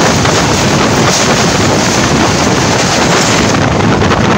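Loud, steady rushing of wind and running noise at an open window of a moving passenger train as another train passes close alongside; the high hiss eases about three and a half seconds in as the passing coaches clear.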